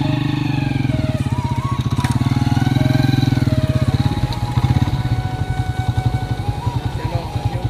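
Small single-cylinder motorcycle engine idling, a fast steady beat of firing pulses.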